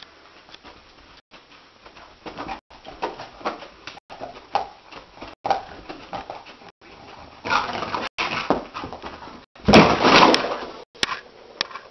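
A dog whimpering softly in its sleep, then scrambling up and running, with a loud bang near the end as it hits the wall.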